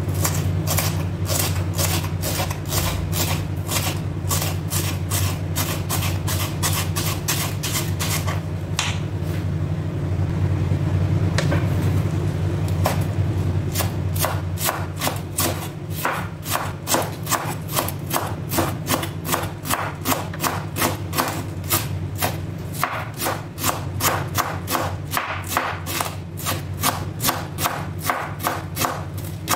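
Chef's knife chopping vegetables on a wooden cutting board, a steady run of knocks about three a second: spring onion at first, then shredding a red cabbage. A steady low hum runs underneath.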